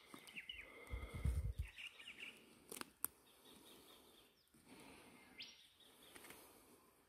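Bush birds giving short whistled calls that rise and fall, several times. A low rumble about a second in is the loudest sound, and two sharp clicks follow close together near three seconds in.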